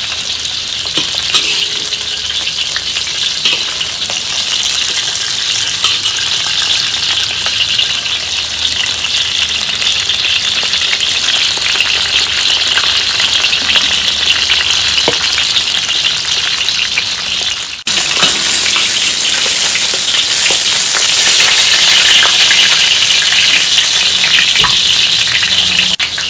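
A whole chicken sizzling steadily in hot oil in a metal wok as it browns. After a brief break about two-thirds of the way through, the sizzle comes back louder.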